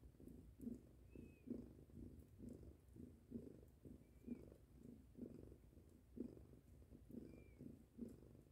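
Mother cat purring quietly while nursing her week-old kittens, the low purr swelling about twice a second. Three faint, short high peeps sound over it.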